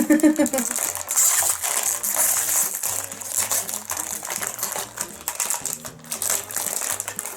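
Crinkling of a Lego minifigure mystery bag's plastic foil being opened, with small plastic Lego pieces clicking and clattering as they are tipped out and handled.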